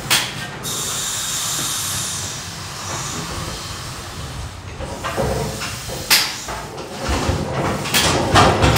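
Rumley OilPull tractor being cold started: a steady hiss for the first couple of seconds, then a few sharp knocks, and near the end the engine begins to fire in uneven, heavy beats that grow louder.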